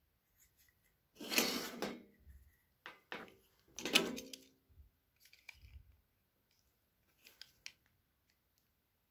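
A plastic snap-off utility knife and plastic bottle caps handled on a hard table: two clattering knocks with a short ring, about a second and a half in and again around four seconds, with a few sharp clicks between them and faint small ticks later.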